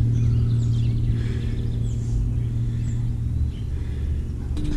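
Steady drone of a propeller plane's piston engine, from the skywriting aircraft overhead, with small birds chirping over it.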